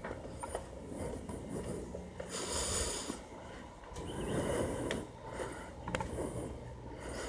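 Breathing and rustling close to the microphone, in uneven hissy swells.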